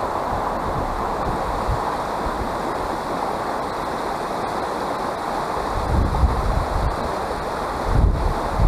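Shallow river running over stones, a steady rush of water, with low wind buffeting on the microphone about six and eight seconds in.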